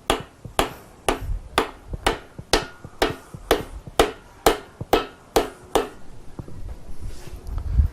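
Rubber mallet tapping a main bearing cap down into an MGB engine block. About thirteen light, even knocks, roughly two a second, stopping about six seconds in.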